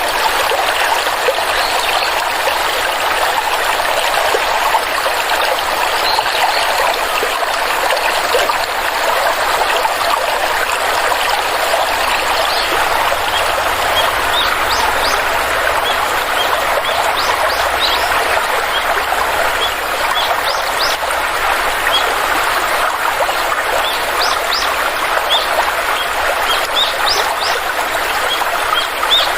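Stream water flowing and trickling steadily. Small birds chirp in short high calls, scattered from about halfway through and more frequent near the end.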